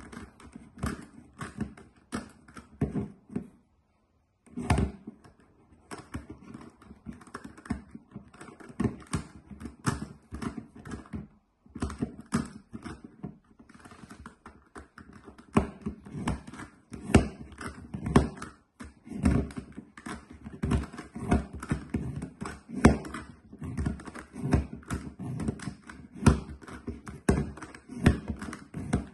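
GAN Megaminx being turned one-handed, its plastic faces clicking and clacking in a rapid, irregular run of taps. The sound stops dead for about a second, about four seconds in.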